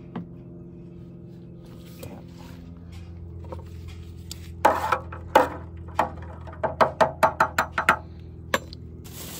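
A metal spoon stirring compost soaking in water in a galvanized metal watering can: a couple of louder clanks about halfway through, then a quick run of about eight sharp clinks against the can's side and one more near the end, over a steady low hum.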